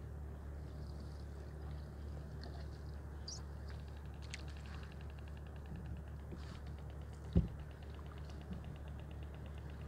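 Quiet ambience in a canoe being paddled on a calm river: a steady low rumble, a faint, fast, even ticking from about four seconds in until near the end, and one low knock about seven seconds in.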